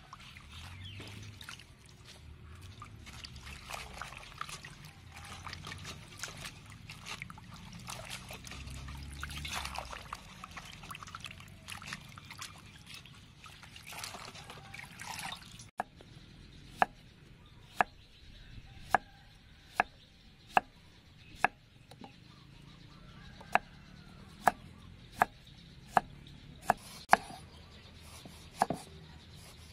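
Hands swishing and splashing lettuce leaves in water in a metal basin, with trickling and dripping. About halfway through it gives way to a knife slicing tomatoes on a wooden chopping board, one sharp tap roughly every second as the blade meets the board.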